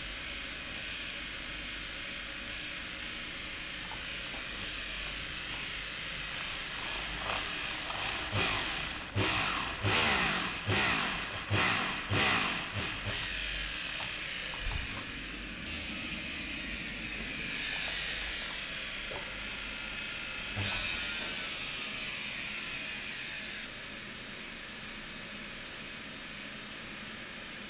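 Old washing-machine motor running steadily under electronic speed control. About a third of the way in, a string of louder surges comes as someone tries to stall its rotation and the controller drives more power to hold the speed.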